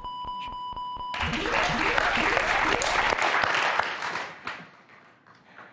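A steady electronic beep with a quick run of ticks as the letters of a correct word light up one by one on a game-show board, then studio audience applause that begins about a second in and fades away over the next few seconds.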